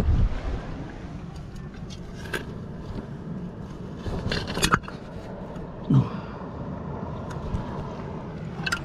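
Muffled underwater sound from a camera held under the water of a rockpool. The wind noise cuts off as it goes under, and a few sharp clicks and knocks follow, with a low thump about six seconds in.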